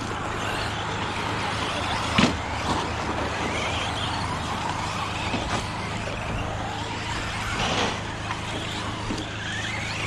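Electric 1/10 RC short-course trucks racing on a dirt track: the high whine of their brushless motors rising and falling as they accelerate and brake, with a sharp knock about two seconds in and another near the end.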